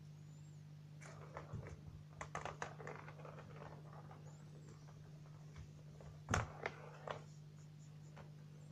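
Persian kittens pawing and scrambling on a round plastic cat toy, making scattered clicks and rattles, with one louder knock about six seconds in. A faint steady hum runs underneath.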